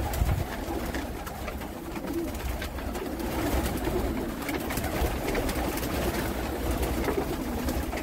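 A loft full of homing pigeons cooing together in a continuous murmur, with scattered wing flaps and a steady low rumble underneath.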